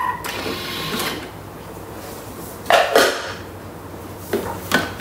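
Thermomix TM6 lid being unlocked and lifted off the mixing bowl, then a few sharp clatters and knocks of plastic and metal as the lid and spatula are handled, twice in quick pairs.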